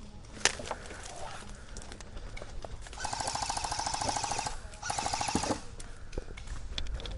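Airsoft electric guns firing full-auto: two bursts of rapid mechanical clatter over a gearbox whine. The first starts about three seconds in and lasts a second and a half; the second, shorter burst comes right after it. A single sharp crack sounds about half a second in.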